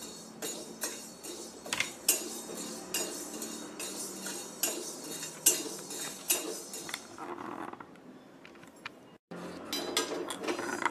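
Black peppercorns being dry-roasted in a steel kadhai and stirred with a spatula: irregular clinks and scrapes of the spatula and the peppercorns against the metal pan.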